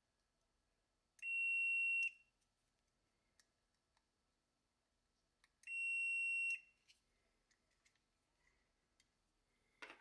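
Fluke 87 multimeter's continuity beeper sounding twice, a steady high beep of about a second each. Each beep marks an automotive relay's contacts closing to near-zero resistance as a 9-volt battery is touched to its coil terminals, with a faint relay click just before it. A short knock comes near the end.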